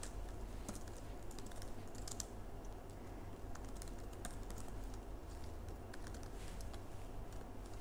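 Quiet typing on a computer keyboard: scattered, irregular keystrokes over a low steady hum.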